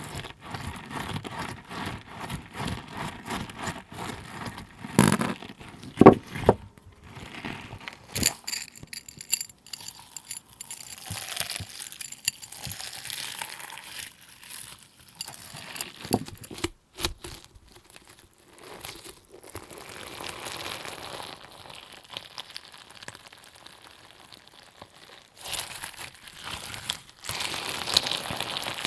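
Slime being squished and pressed by hand: a run of sticky clicks and pops, with a couple of louder squelches about five and six seconds in and stretches of softer crackling.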